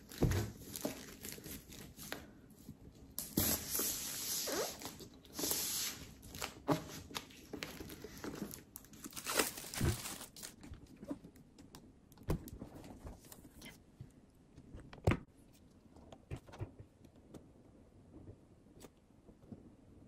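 Thin plastic shrink-wrap being torn and crinkled off a MacBook Pro's cardboard box, in crackling bursts through the first half. After that come only scattered light taps and knocks as the bare box is handled.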